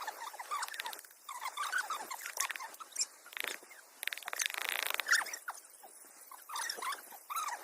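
A small animal squeaking and whimpering in many short, high calls, with a burst of rapid crackling about three seconds in.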